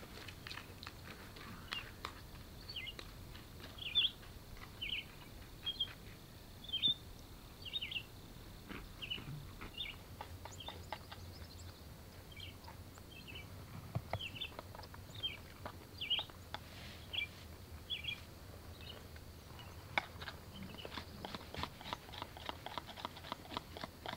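A small wild animal chirping: short, high notes repeated about one and a half times a second for some fifteen seconds, then stopping. Faint rapid clicking follows near the end.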